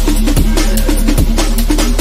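Electronic dance music in drum-and-bass style: a fast, busy drum beat over a deep held bass note, with the bass sliding down in pitch twice.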